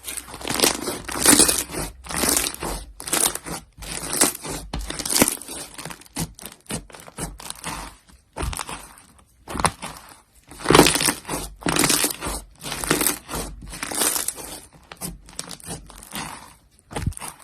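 Slime being squeezed and pressed by hand close to the microphone, in irregular bursts about a second long with short pauses between.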